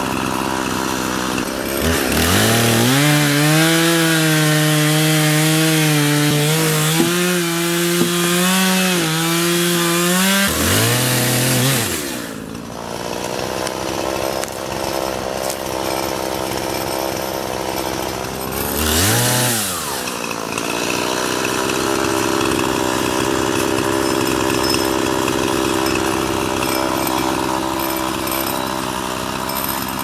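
Gas chainsaw revved up about two seconds in and cut through a felled pine trunk for about eight seconds, its pitch dipping slightly under load, then let back down to idle. A short rev comes partway through, and the saw idles for the rest.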